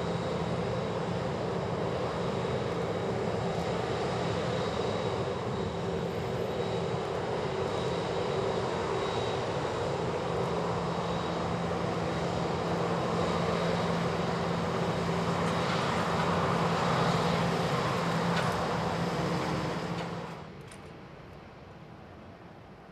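Boeing 737-700's CFM56-7B turbofan engines at taxi power as the airliner rolls past close by: a steady jet rush with a low hum and a thin high whine, swelling slightly as it passes. About twenty seconds in, the sound drops suddenly and becomes faint and distant.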